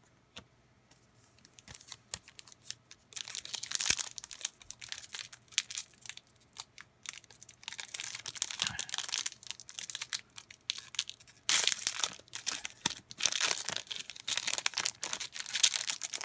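Foil wrapper of a trading-card pack being torn open and crinkled by hand, in repeated bursts of crackling and tearing that start about three seconds in and grow louder near the end.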